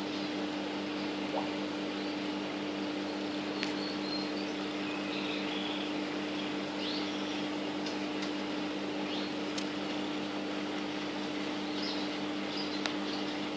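A steady machine hum under an even hiss, with faint, scattered short chirps from pet parrots and a few sharp clicks.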